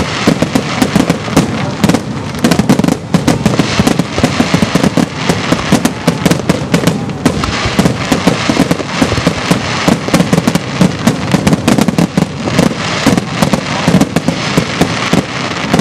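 Aerial fireworks shells bursting in a dense barrage: a rapid, unbroken run of sharp bangs, many a second.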